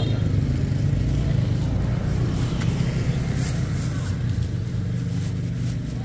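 A motor vehicle engine running steadily, a low even hum. Through the middle, thin plastic bags of oranges rustle briefly as they are handled and tied.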